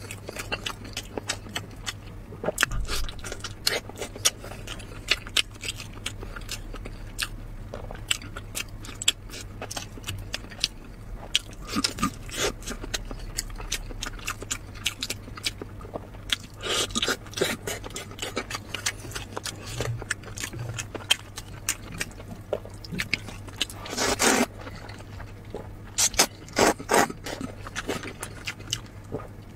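Close-miked eating sounds: a person biting and chewing soft food, with many quick wet mouth clicks and smacks and a few louder bursts of chewing.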